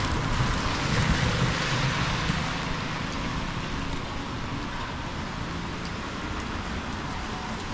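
Heavy rain falling steadily on a city street, with a low rumble of traffic that is louder in the first two seconds and then eases.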